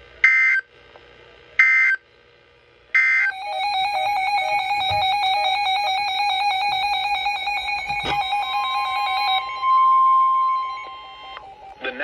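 Weather radio sounding an Emergency Alert System alert: three short, screechy digital header bursts about a second and a half apart, then an electronic alarm tone for about six seconds, ending in a single steady higher tone for about a second. The alert comes ahead of a new severe thunderstorm warning.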